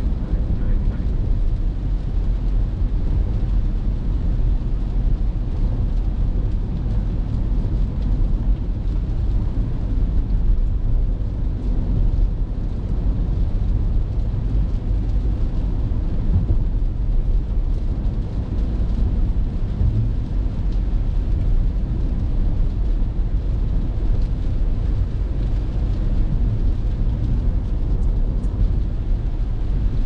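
Car driving on a rain-soaked road, heard from inside the cabin: a steady low rumble of tyres on the wet road and the running engine.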